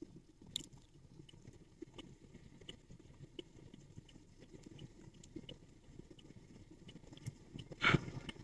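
Quiet outdoor background: a faint low rumble with scattered small clicks, and one short loud bump of noise near the end.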